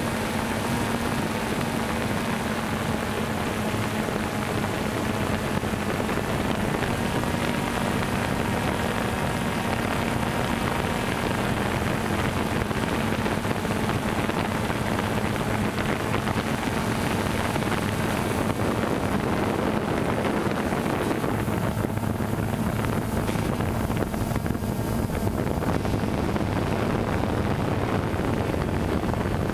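DJI Phantom 2 quadcopter's motors and propellers buzzing steadily in flight, heard from the camera mounted on the drone, mixed with wind noise; the tone shifts slightly past the middle as it manoeuvres.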